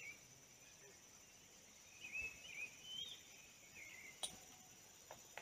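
Faint rural ambience: a steady high-pitched insect drone, with a bird giving short warbled chirps about two to four seconds in and a single sharp click a little after four seconds.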